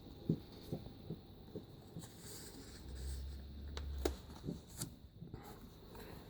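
Glossy magazine pages being handled and turned: faint paper rustling with soft taps and a few sharp clicks.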